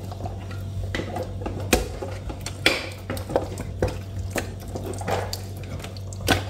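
Chicken pieces being mixed by hand into an oily spice marinade in a large bowl, with irregular knocks and clinks against the bowl about once or twice a second. A steady low hum runs underneath.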